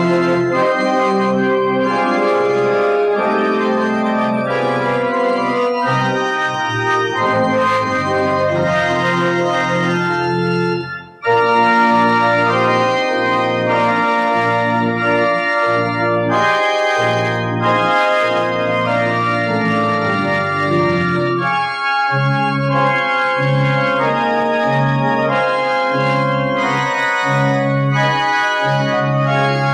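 Church organ playing a postlude: sustained chords with a moving line above them. The music breaks off for a moment about eleven seconds in, then carries on.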